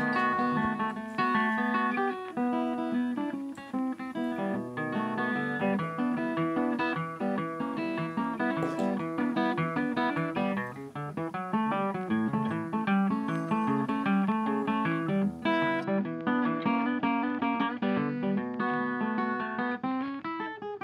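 Background music: an acoustic guitar tune of plucked and strummed notes.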